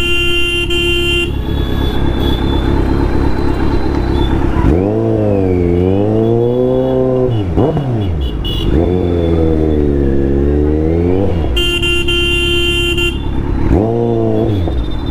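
A vehicle horn sounds at the start and again about twelve seconds in. Between these, a Kawasaki Z900's inline-four engine falls and rises in pitch as the revs change, twice, with a sharp drop in revs about eight seconds in.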